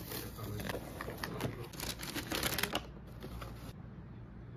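Cardboard mailer box being opened by hand: a seal sticker peeled off and paper packaging crinkling, a quick run of clicks and crackles for about three seconds, then fainter handling.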